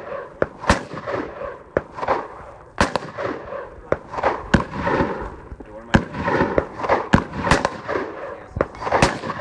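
Rapid gunfire from a shooter running a competition stage: about fifteen single shots at an uneven pace, each followed by a short echo.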